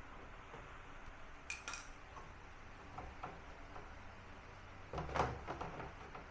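Scattered light metallic clinks and taps, with the loudest cluster about five seconds in, from tools and metal parts being handled while a front-loading washing machine is taken apart to reach its motor.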